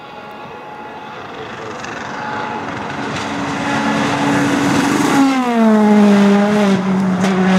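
A Peugeot 208 rally car's engine approaching at speed and growing steadily louder. About five seconds in its note falls sharply in pitch as the car reaches and passes, and it stays loud to the end.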